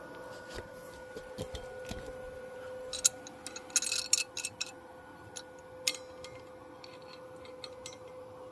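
Hand tap cutting threads into a drilled hole in metal tubing: irregular clicks and ticks as the tap is turned, a quick run of them a few seconds in and another sharp click about halfway. A faint steady hum runs underneath.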